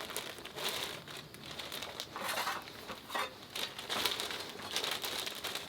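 Plastic food packaging crinkling as it is handled and opened, in irregular rustles and crackles.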